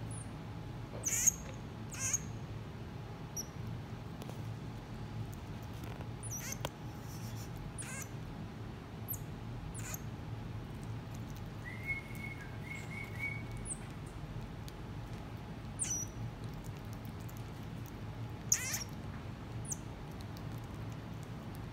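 Common marmoset giving short, high-pitched calls every few seconds while it eats a banana, over a steady low hum.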